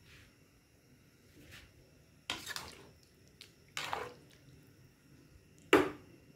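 A spatula stirring in a pan of water with round balls in it: three short clinks and scrapes against the pan, with the water sloshing.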